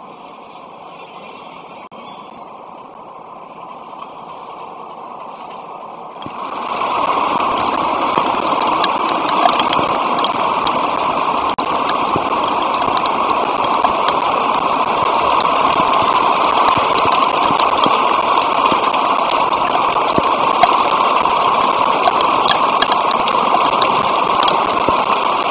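A fainter steady engine-like drone gives way about six seconds in to loud, steady rain noise, a heavy downpour hissing on the microphone, which stops abruptly at the very end.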